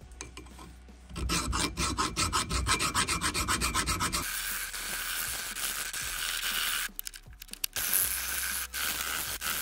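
Flat hand file rasping across the steel handle of a Record 18-inch pipe wrench held in a vise, starting about a second in with rapid back-and-forth strokes. From about halfway the filing turns into a steadier scraping, with short breaks between passes near the end.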